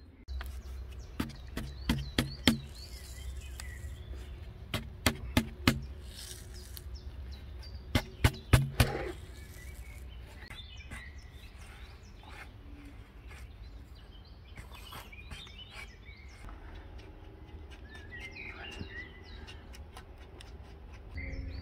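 Sharp knocks in three quick runs of four or five, within the first nine seconds. Birds chirp now and then around them.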